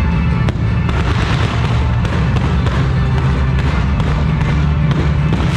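Aerial fireworks going off: a sharp report about half a second in, then a dense crackle of bursting stars, over loud bass-heavy music.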